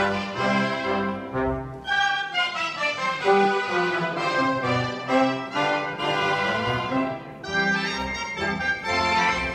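Live brass band of trumpets and trombones playing a Catalan folk dance tune, the melody carried over regular low bass notes.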